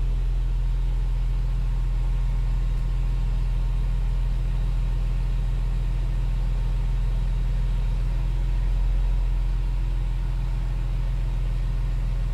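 Hercules Trackmobile's diesel engine idling steadily, heard from inside the cab as an even low hum, swelling slightly about nine seconds in.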